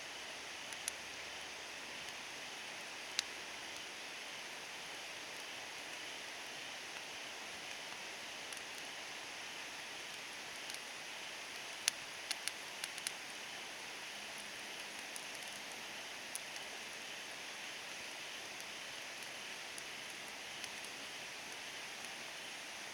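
Small wood fire crackling: a steady hiss with occasional sharp pops, and a quick cluster of pops about halfway through.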